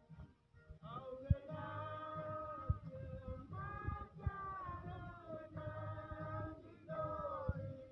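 Voices singing unaccompanied in slow phrases of long held notes, with short breaks between phrases. A few sharp low thumps are mixed in.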